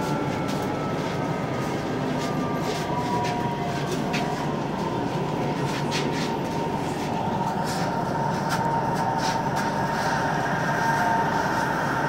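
Commuter train running on the rails, heard from inside the carriage: a steady rumble with scattered sharp clicks from the wheels and track. A steady high whine grows louder about halfway through.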